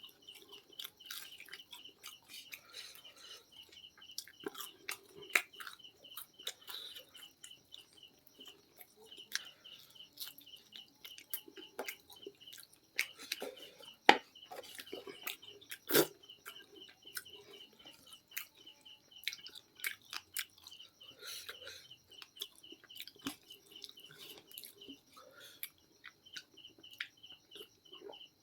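Close-up chewing and crunching of KFC fried chicken, with irregular sharp crunches from bites, the loudest two near the middle. A fast, regular high-pitched chirping pulses in the background.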